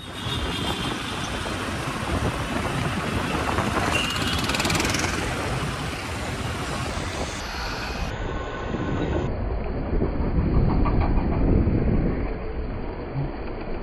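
Steady rush of wind and road noise from a motorcycle moving through traffic, picked up by a phone inside the rider's helmet. The noise swells a little twice.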